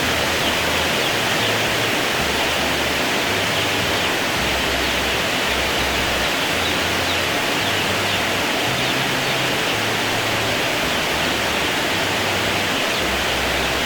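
Heavy rain pouring steadily: a loud, even hiss that does not let up.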